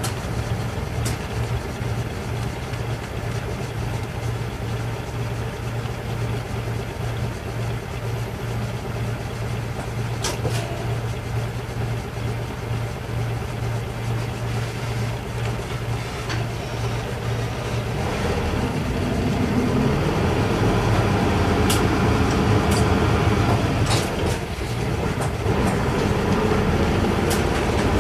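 Isuzu Erga Mio city bus's inline-six diesel engine heard from inside the cabin as the bus drives along, a steady low engine hum with road noise. About eighteen seconds in the engine note changes and grows louder, and a few sharp clicks sound here and there.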